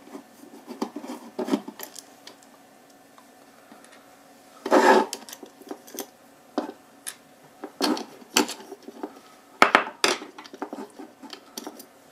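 Small metal screws being undone with a screwdriver from a metal LED floodlight housing and set down on a wooden tabletop: scattered light clicks and clinks, with one longer, louder burst of handling noise about five seconds in.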